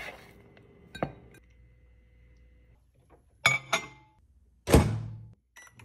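Kitchen handling sounds: a single knock about a second in, then a Pyrex glass measuring cup clinking down on a microwave's glass turntable, and near the end a louder, heavy thunk followed by a short low hum.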